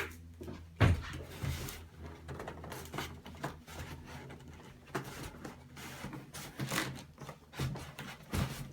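Cardboard box and packaging being opened and handled: irregular scrapes, rustles and taps, with a sharp knock about a second in.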